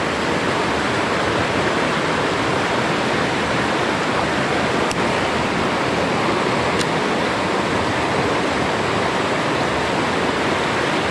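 Steady rushing of shallow river rapids over rocks, with two faint clicks about five and seven seconds in.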